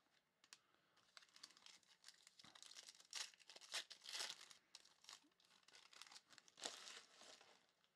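Faint crinkling and tearing of a foil trading-card pack wrapper as it is ripped open, with a few louder crackles around the middle and near the end as the cards are pulled out.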